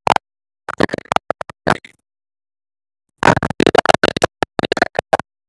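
Close, scratchy rustling in two bursts, a short one about a second in and a longer one of about two seconds near the end, with dead silence between.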